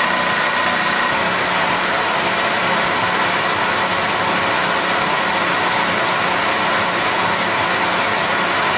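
Film perforating and rewinding machine running at speed: a steady, loud mechanical running noise with a faint even hum under it.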